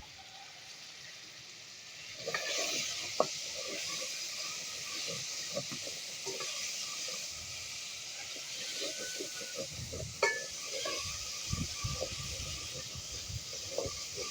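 Food frying in a hot pan: a steady sizzle that starts about two seconds in, with a few sharp clicks of a utensil against the pan.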